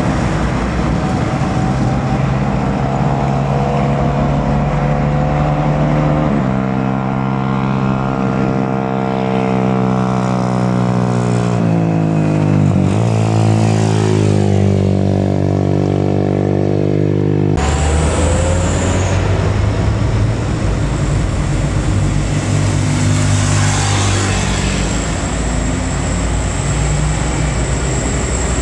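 Diesel truck engines labouring uphill. The revs sag and then pick up again about halfway through, and the engine note changes abruptly twice as one truck gives way to another.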